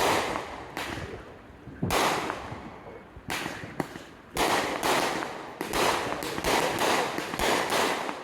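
Fireworks exploding: a string of about a dozen sharp bangs, each trailing off. They come a second or so apart at first and several a second in the second half.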